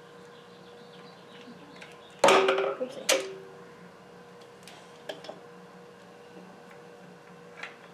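Metal hand tools (a ratchet, extension and spark plug socket) clanking while being handled: two loud clanks about two and three seconds in, each with a short ring, then a few light clicks.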